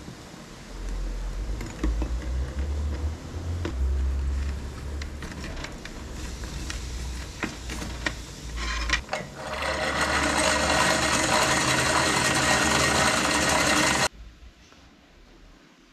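Hot phosphating bath boiling in a metal pot over a fire, with scattered light clinks as a steel knife blade on a wire is lowered into it. About nine seconds in, a loud, dense bubbling hiss rises and runs until it cuts off suddenly near the end.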